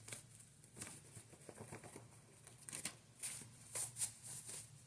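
Tarot cards being handled and shuffled: a few faint, soft flicks and rustles, coming more often in the second half.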